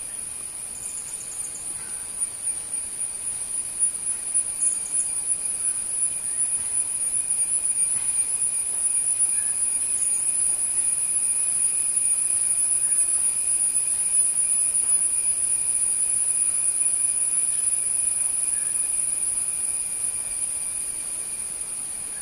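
A steady, high-pitched insect drone that swells over the first several seconds and then holds. A few short, faint chirps come and go above it.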